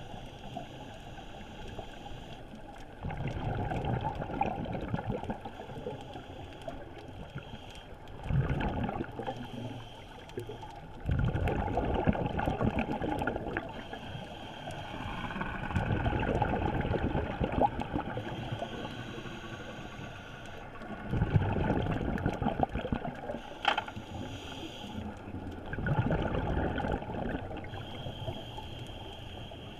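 Scuba diver breathing through a regulator, heard underwater through a GoPro's waterproof housing: a rumble of exhaled bubbles about every four to five seconds, with a fainter hiss of inhalation between them.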